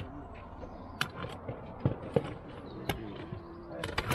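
Small die-cast and plastic toy vehicles clinking and knocking against each other as hands rummage through a cardboard box of them, a few scattered clicks.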